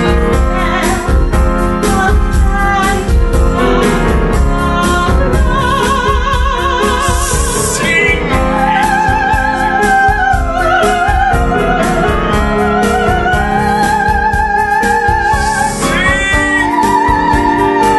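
A woman singing in an operatic style with a wide vibrato, accompanied by a grand piano. Shorter phrases come first. From about halfway she holds long, sustained notes.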